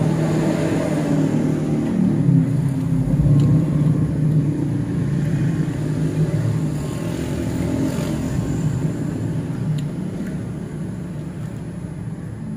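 Road traffic going by: steady engine noise from passing vehicles, gradually fading over the last few seconds.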